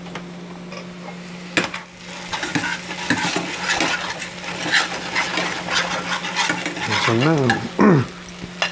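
Sliced onions sizzling in a stainless-steel skillet over high heat, stirred and scraped with metal tongs. The crackling sizzle builds from about two seconds in, just after a sharp click, over a steady low hum.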